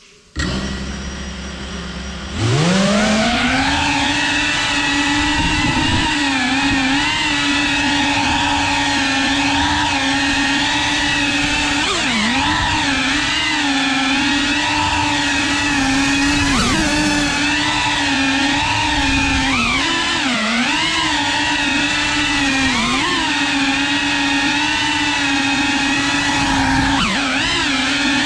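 Brushless motors and propellers of a small FPV quadcopter: running low for about two seconds, then spooling up in a quick rising whine and holding a loud, steady buzzing whine. Its pitch dips and wobbles briefly several times as the throttle changes in flight.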